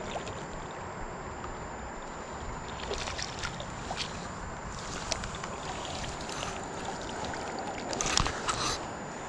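Steady rush of stream water with several splashes, from a hooked smallmouth bass thrashing at the surface. The loudest burst of splashing comes near the end.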